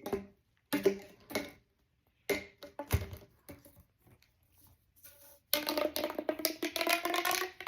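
Plastic pop tubes being stretched and squeezed: a series of short, sharp pops that ring with a pitch, a knock about three seconds in, then a longer run of continuous ratcheting rattle from about five and a half seconds in.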